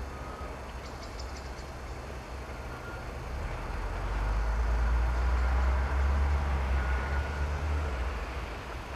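Low, steady engine rumble of a DB Class 218 diesel locomotive. It swells about three seconds in, holds for a few seconds, then eases off near the end.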